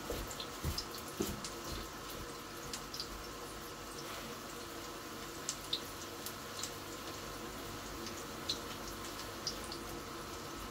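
Chops frying in a pan: a steady sizzle with scattered small pops and crackles of spitting fat.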